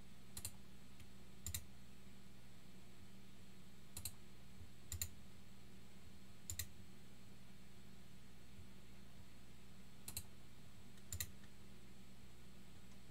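Short, sharp clicks, several in quick pairs, scattered irregularly over a steady low hum.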